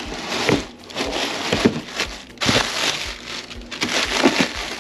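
Packing material crinkling and crumpling in irregular rustling bursts as it is pulled out of a tightly packed shipping box.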